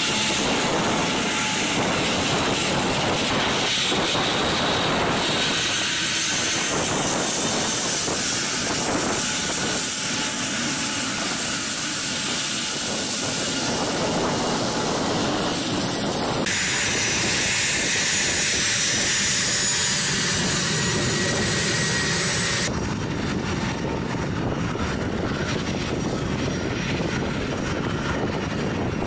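A-10 Thunderbolt II jets' twin General Electric TF34 turbofan engines running as the aircraft taxi: a loud, steady jet rush with a thin high whine. The sound changes abruptly twice, about halfway through and again about three-quarters of the way through.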